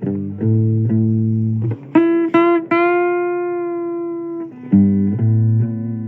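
Blues guitar playing between sung lines: a low riff of held notes, then a long sustained higher note about two seconds in, then back to the low riff near the end.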